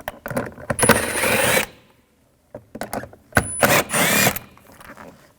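A 7 mm socket on a socket driver backing out small trim screws, in two bursts of rapid ticking and rattling with a short pause between.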